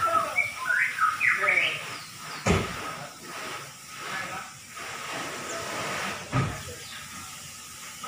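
Caged white-rumped shama (murai batu) singing a quick run of whistled, gliding phrases during the first two seconds, then falling quiet. Two sharp knocks come about two and a half and six and a half seconds in, over a steady hiss.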